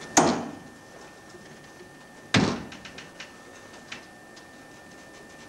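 Ship's corridor swing doors banging twice, about two seconds apart, each bang with a short ringing tail, followed by a couple of lighter knocks.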